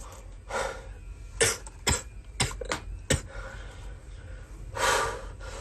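A man coughing hard: a run of short, sharp coughs, then a longer cough near the end. The violent coughing is put on as a joke.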